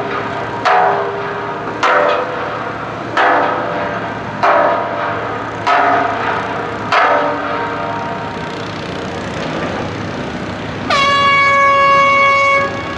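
Drilling site for soldier-beam piles: six sharp metallic clanks that ring on, about one every second and a quarter, then a single steady horn blast of under two seconds near the end.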